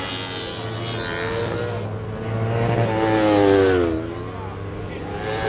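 Racing sport motorcycle engines running at high revs. The engine note swells to a peak about three and a half seconds in, then falls in pitch and fades as a bike passes by.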